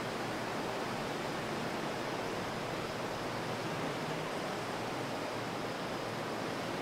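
Steady, even hiss with no distinct sounds: background noise of a quiet night recording.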